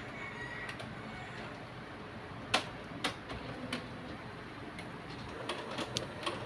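HP Color LaserJet Pro MFP M176n colour laser printer ticking and clicking over a low hum as it takes up four newly fitted toner cartridges, with a sharp click about two and a half seconds in and a quick run of clicks near the end.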